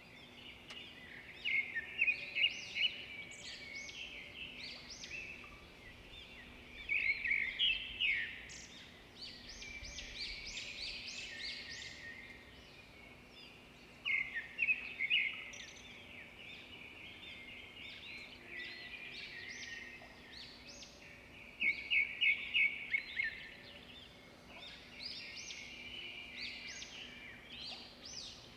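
Birds chirping and singing, with louder bursts of rapid chirps about every seven seconds.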